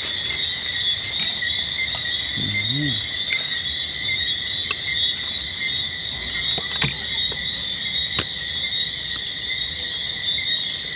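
A steady chorus of insects chirring without a break, two high even pitches layered together, with a few sharp light clicks scattered through it.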